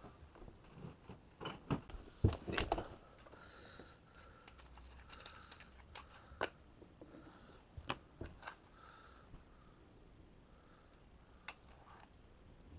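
Scattered light clicks and knocks of small objects being handled, a few sharper taps among them, over faint background noise.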